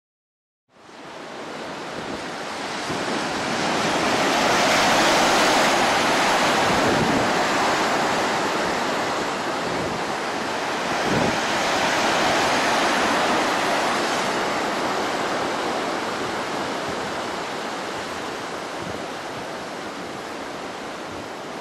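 Sea water rushing and churning, with wind noise. It fades in about a second in, swells twice and then slowly dies away.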